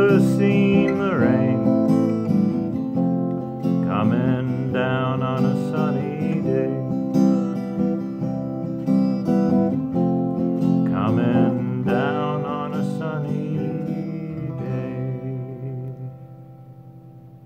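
Ovation acoustic guitar strummed through the closing chords of a song, ending with a final chord left to ring and fade out about sixteen seconds in.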